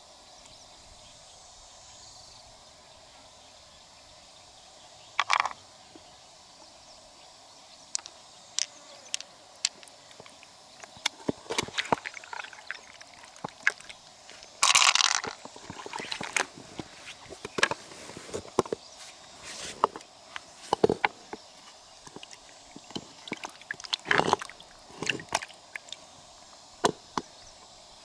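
Freshwater mussel shells being handled and pried open: scattered sharp clicks and taps with a few short scrapes, beginning about five seconds in.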